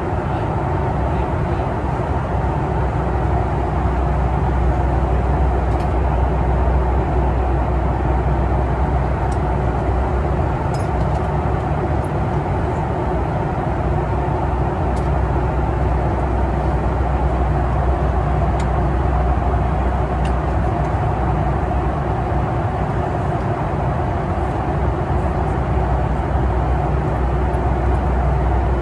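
Steady cabin drone of a Boeing 737 MAX 8 airliner in cruise flight: an even, low rushing hum with no change in pitch or level.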